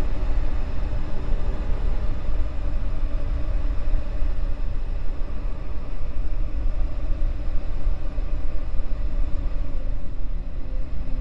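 A steady, low rumbling drone with faint held tones above it, an eerie horror-style soundtrack.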